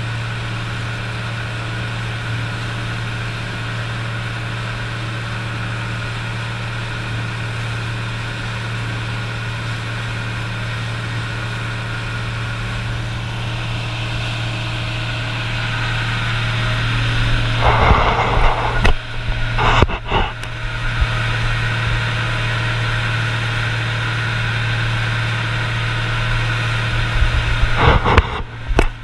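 Fishing boat's engine running steadily under way, a constant low drone with water rushing past the hull. A few loud rushing bursts come about two-thirds of the way through and again near the end.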